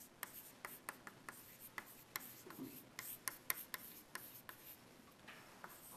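Chalk writing on a blackboard: faint, irregular taps and short scrapes of the chalk stick as the letters go down, several a second, thinning out near the end.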